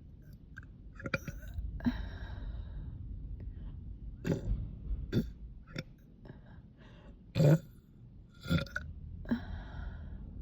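A young woman burping after a meal on a bloated stomach: a series of short burps, the loudest a little past halfway.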